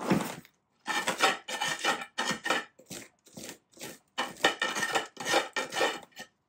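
Hand tool scraping and rasping around the inside of a thin bonsai pot in short, uneven strokes, about two a second, to free a root-bound black pine that sits tight in the pot.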